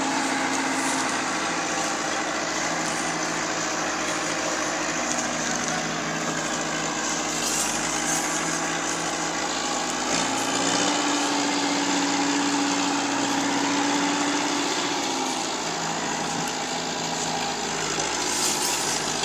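Massey Ferguson 265 tractor's diesel engine running hard under the load of a heavily loaded sugarcane trolley. The engine note rises about halfway through and falls back a few seconds later.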